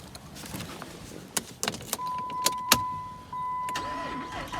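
A few sharp clicks inside a 2007 Jeep Grand Cherokee SRT8, then from about halfway a steady high electronic tone from the dashboard warning chime, with the engine not yet running.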